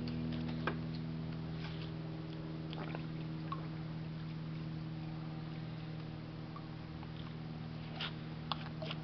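Steady, even machine hum with a few faint clicks over it.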